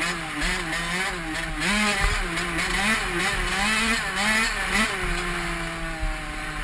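Honda CR85 two-stroke dirt bike engine revving up and down in quick blips, about twice a second, while being ridden, with wind rushing over the helmet-mounted microphone. About five seconds in the throttle closes and the engine pitch falls slowly and steadily as the bike rolls off.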